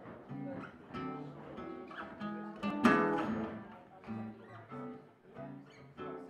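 Live blues band with acoustic guitar picking a run of single notes over a low line, and one louder, sharp accent about three seconds in.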